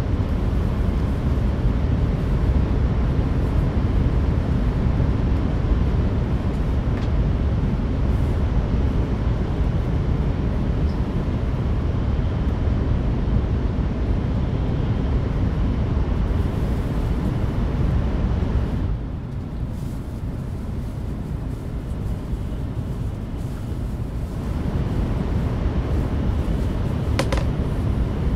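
Cabin noise of an N700S Shinkansen running at speed: a steady rumble of wheels and rushing air. It drops and softens for about five seconds in the second half, then comes back, with one brief sharp tick near the end.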